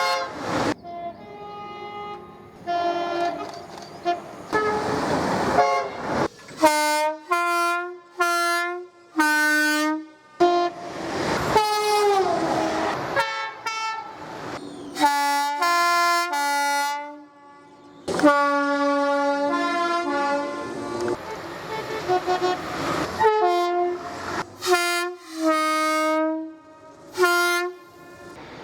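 Train air horns sounding a long run of short blasts at several different pitches, strung together like a tune. Stretches of rushing noise come in between.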